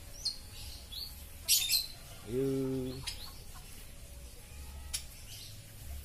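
Caged songbirds chirping in short, high calls, loudest in a quick cluster about a second and a half in. A brief low, steady voice-like hum comes about halfway through.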